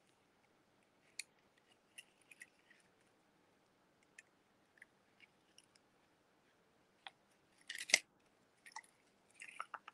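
Faint, scattered clicks and light rustles of 22-gauge wire being handled and threaded through a small pewter bead. A louder cluster of clicks comes about eight seconds in.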